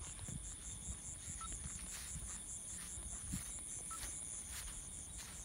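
Crickets chirping at night: a continuous high trill with a pulsing chirp about four times a second.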